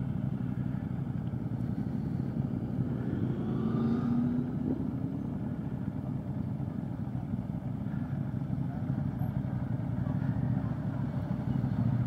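A 2015 Triumph America's 865cc parallel-twin engine running at low revs while riding slowly, with other motorcycle engines close by. About four seconds in, an engine tone briefly rises in pitch.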